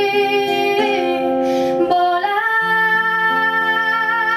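A woman singing long held notes with an acoustic guitar played beneath; about two seconds in the voice moves up to a higher note and holds it.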